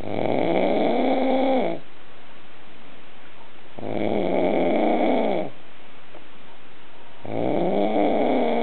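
A sleeping person snoring loudly: three long snores about three and a half seconds apart, each lasting under two seconds and dropping in pitch as it ends.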